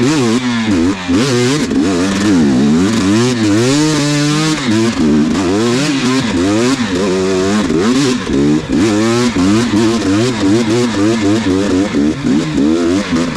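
Dirt bike engine revving up and down over and over as the throttle is worked on and off.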